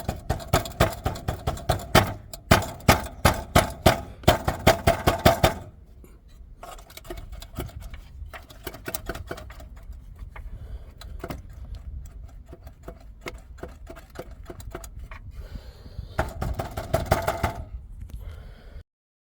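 Rapid metallic rattling and knocking from the exhaust of a Dodge Intrepid's 2.7 L V6, the sign of a catalytic converter whose substrate has broken up and is loose inside its can. The rattle is loud for the first five or so seconds, fades to scattered knocks, turns loud again near the end, then cuts off suddenly.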